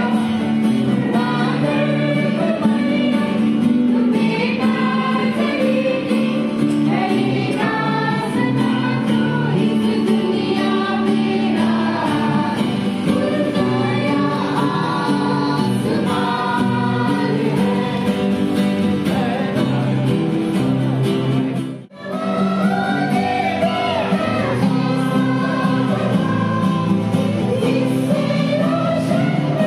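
A church choir, mostly women's and girls' voices, singing a Christmas carol together, with an acoustic guitar accompanying. The sound drops out for an instant about two-thirds of the way through.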